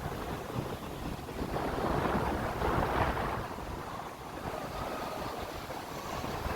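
Atlantic surf washing onto a sandy beach, swelling to a peak about halfway through and then easing off, with wind rumbling on the microphone.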